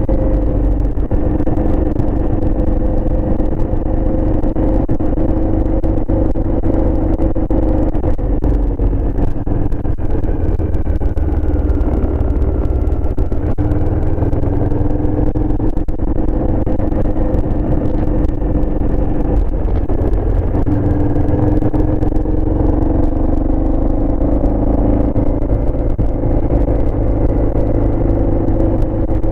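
Aprilia Shiver's V-twin engine running at a steady cruise, its pitch rising and falling gently with the throttle, over a constant low wind rumble.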